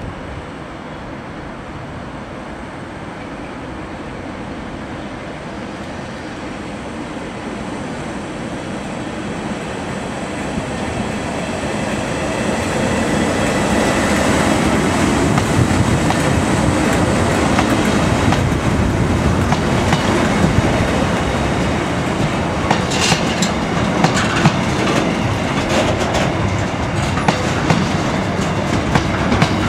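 Freightliner Class 90 electric locomotive hauling a container freight train, growing steadily louder as it approaches and passes close by. In the second half its container wagons roll past with a steady rumble and repeated sharp wheel clicks over the rail joints.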